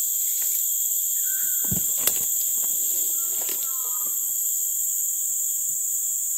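Steady, high-pitched drone of a chorus of forest insects such as crickets, with two short whistles about one and three seconds in.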